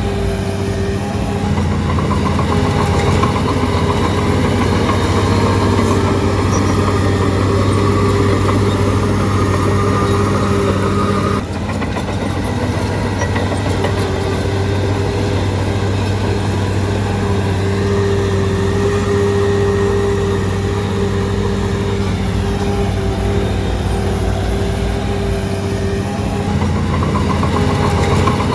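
Diesel engine of a Shantui DH17C3 crawler bulldozer running steadily, with a sudden short dip in level about halfway through.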